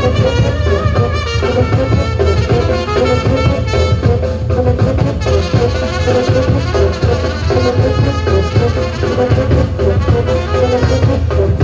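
Balkan brass band playing live: trumpets, tenor horns and a saxophone carrying a melody over a bass drum and cymbal.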